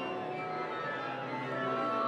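Background music: the instrumental opening of a worship song, with held notes and no singing yet.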